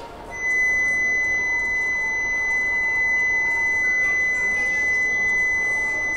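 Station platform warning buzzer sounding one steady, high-pitched electronic tone that switches on about a third of a second in and holds without a break.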